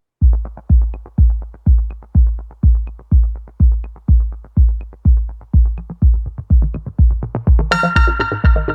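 Electronic background music: a steady, deep kick-drum beat of a little over two beats a second, with a synthesizer coming in near the end.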